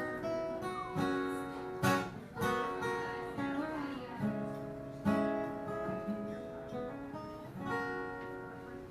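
Acoustic guitar playing the closing bars of a country song: a series of strummed chords, each left to ring and fade.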